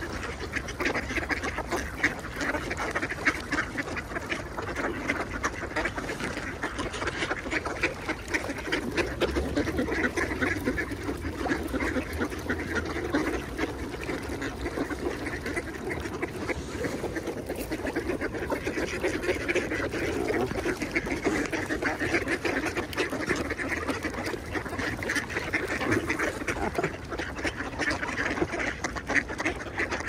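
A large flock of ducks quacking and chattering without pause, many birds calling over one another.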